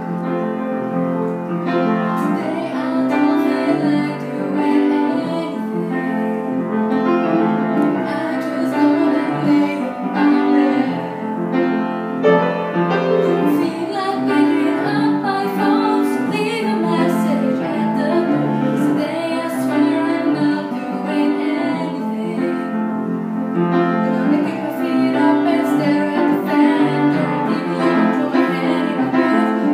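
Upright piano accompanying a girl singing solo.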